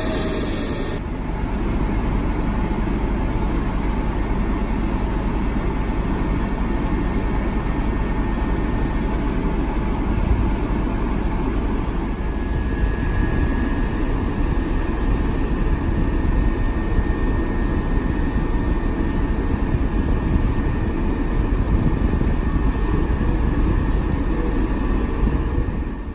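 TEP70BS diesel locomotive's 16-cylinder engine running at idle: a steady, loud low rumble.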